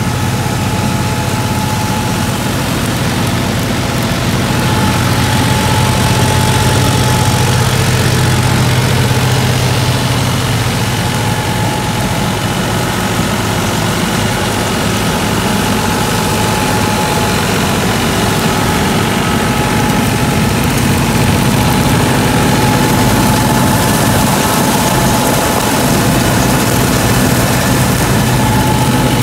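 New Holland 5620 tractor's diesel engine running steadily under load as it drives a New Hira straw reaper through the PTO, with the reaper's machinery running alongside it.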